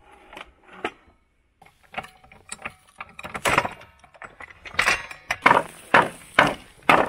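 Wooden pallet being knocked and pried apart: a run of sharp wooden knocks and cracks, sparse at first, then louder and about twice a second in the second half, with a thin high squeal under the later strikes.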